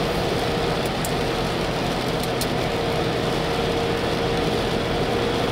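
Steady road and engine noise inside a car's cabin as it drives, with a faint steady hum running through it.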